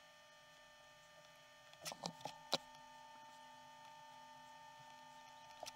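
Mostly quiet; about two seconds in, a few faint clicks and taps as a small metal project box and a soldering iron are handled, then a faint steady hum.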